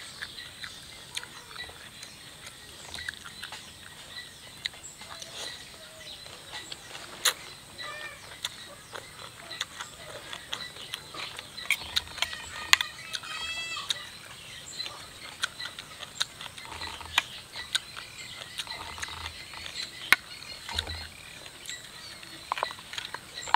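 Close-up eating sounds: chewing, lip smacks and noodle slurps, with a metal spoon and fork clicking and scraping on a plate, many short sharp clicks throughout. A short series of rising and falling calls in the background about halfway through.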